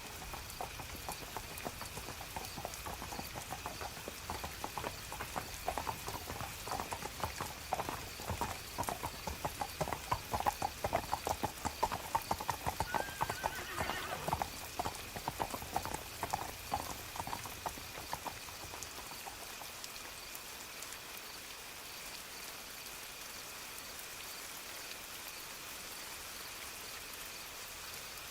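Horse hooves clip-clopping past in steady rain, growing louder toward the middle and fading out about two-thirds of the way through, with a short whinny near the middle. After that only the rain is left.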